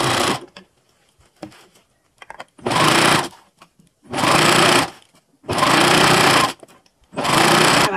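Singer domestic electric sewing machine stitching cloth in short runs of about a second each, five times, with brief pauses between runs.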